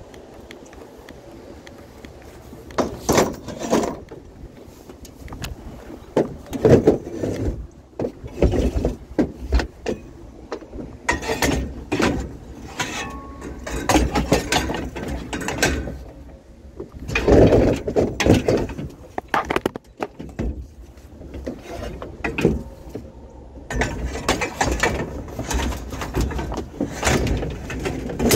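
Metal scrap being handled and moved about, with irregular clanks and rattles; the loudest bangs come about 3, 7 and 17 seconds in.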